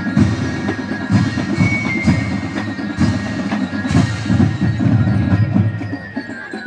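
Marching band percussion playing a marching cadence: a deep drum pulse with sharp accented strokes about once a second.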